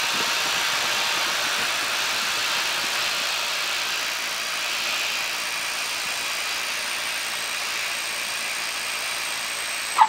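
Cockpit noise of an Aquila AT01 light aircraft landing: the engine runs at low power under a steady rush of air, which eases slowly as the aircraft slows on the runway. A short sharp click comes near the end.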